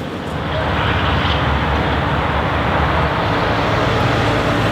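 A vehicle's engine running steadily with a broad rushing noise, swelling about half a second in and then holding level.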